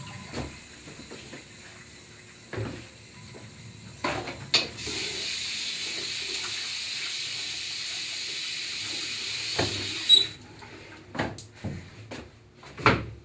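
Restroom sink tap running in a steady hiss for about six seconds as hands are washed under it, then shut off. A few short knocks come before and after.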